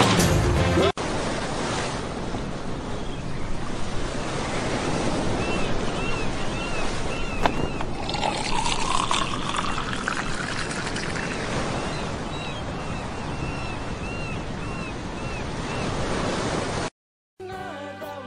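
Ocean surf washing onto a beach, a steady rushing hiss with faint high chirps repeating over it. Music with held notes takes over near the end.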